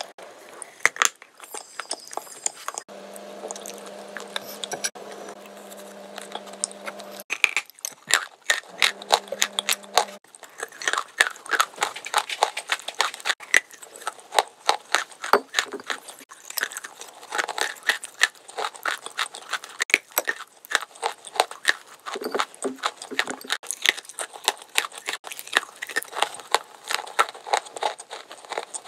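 Close-up wet mouth sounds: rapid lip and tongue clicks, smacks and chewing noises, with a steady low buzz for a few seconds in the first third.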